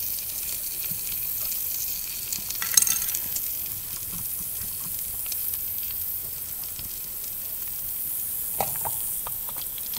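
Meat sizzling in a small skillet over a campfire, a steady frying hiss, with a brief clatter about three seconds in as the pan is handled.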